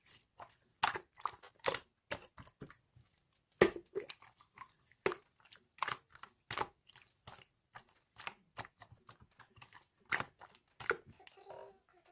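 Close-up chewing and crunching of crisp food: irregular sharp crunches, two or three a second, the loudest about three and a half seconds in.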